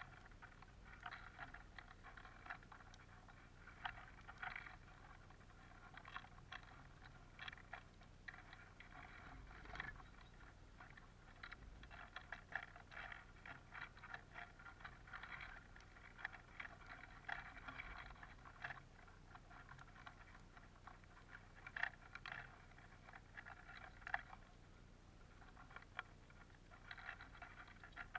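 Bullfinches and siskins pecking and cracking sunflower seeds on a wooden feeder tray: a faint, irregular run of small clicks and crunches.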